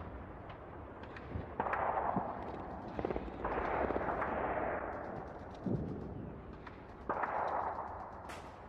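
Gunfire and explosions of a battle, as a film sound effect. Three main blasts come a couple of seconds apart, each starting suddenly and dying away over a second or two.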